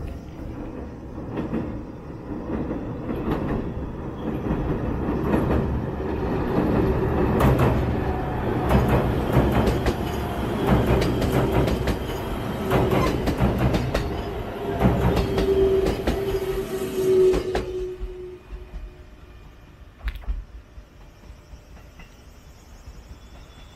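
Electric commuter train crossing a steel girder railway bridge: the rumble builds, then a run of rhythmic clicks from the wheels over the rail joints with a steady hum, and it falls away suddenly about eighteen seconds in as the last car passes.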